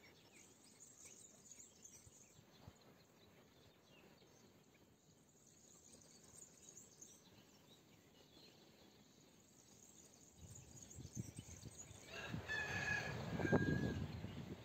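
A hen calling near the end, a held note among a few shorter ones, over low rustling that rises in the last few seconds. Faint small-bird chirps come earlier.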